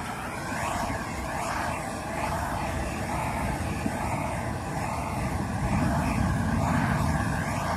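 Handheld gas torch burning steadily as it sears a steak, the flame swept back and forth over the meat from a little further off, the way to get a more well-done sear. The rushing sound wavers in tone as the flame moves and grows louder about six seconds in.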